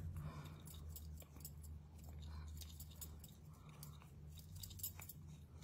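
Wooden craft stick stirring metallic paint in a small glass dish: faint scraping with many light clicks of wood against glass, over a low steady hum.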